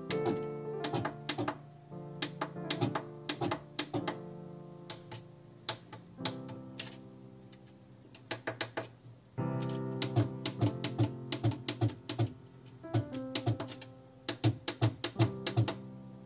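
Push-buttons on a Brother FS45E sewing machine's control panel clicking in quick irregular runs as they are pressed to change stitch settings, over background music with plucked notes.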